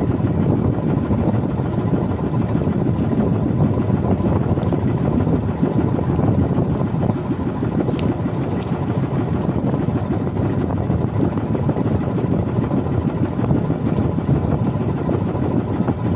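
Small outrigger boat's engine running steadily under way, with water rushing past the hull.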